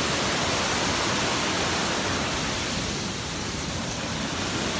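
Steady rush of water from a small waterfall pouring over a rock ledge, dipping slightly about three seconds in.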